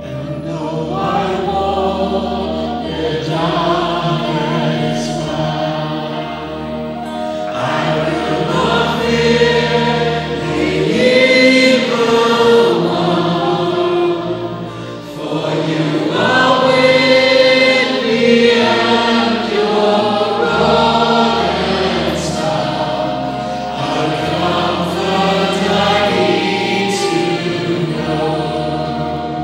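Gospel choir music: voices singing held chords over a steady low accompaniment, swelling louder in the middle.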